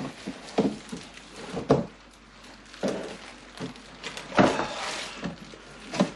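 Cardboard box and packaging being handled: a string of short thumps and scrapes, about seven, the loudest about four and a half seconds in.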